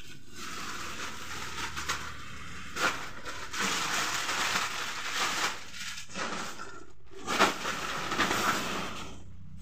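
Plastic sacks and bags rustling and crinkling in uneven surges as they are shifted and pulled aside, with a few sharp knocks.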